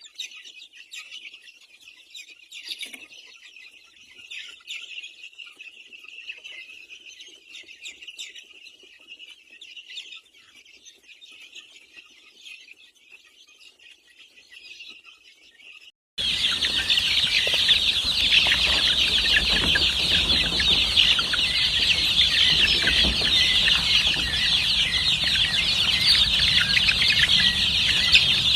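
A flock of chickens clucking and chirping. About halfway through, the sound cuts abruptly to a louder, dense high-pitched chorus of calls with a low rumble beneath it.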